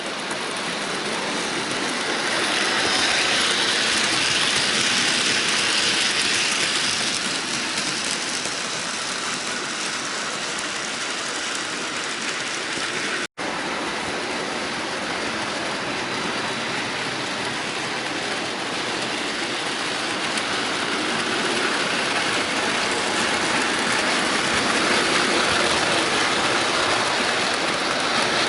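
Bachmann model train running on the layout track: a steady running noise from its motor and wheels on the rails. The sound breaks off for an instant about 13 seconds in.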